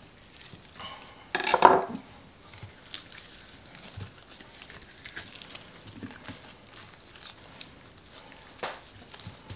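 Wet squelching and soft slapping of a gloved hand rubbing oil into the skin of a raw whole chicken, in small irregular strokes, with one louder, longer squelch about a second and a half in.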